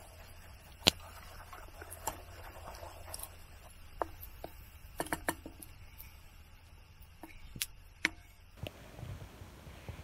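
Wood campfire crackling: irregular sharp clicks and pops, with the loudest pop about a second in.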